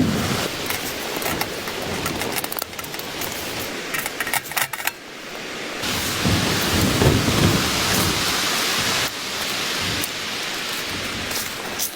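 Blizzard storm noise: a steady hiss of wind-driven snow with low rumbling gusts. A cluster of sharp taps comes about four to five seconds in.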